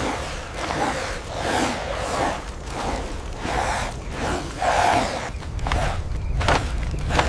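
A person gasping and panting hard in rapid, repeated breaths, with a few sharp knocks near the end.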